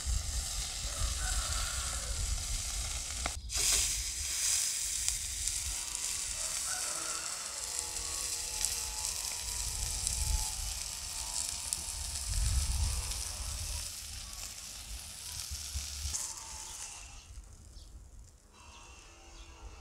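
Veal rack searing on a hot cast-iron grill pan over charcoal, fat and juices sizzling steadily. The sizzle dies down near the end as the meat comes off the pan.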